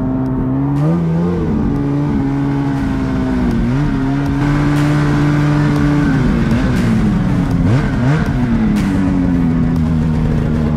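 Two-stroke Polaris mountain snowmobile engine running under throttle in deep snow, its pitch dipping and climbing again about a second in, near four seconds in, and twice more between about six and eight seconds as the rider works the throttle.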